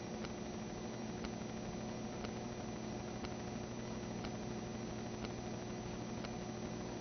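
Steady electrical hum with hiss, carrying a faint sharp tick about once a second.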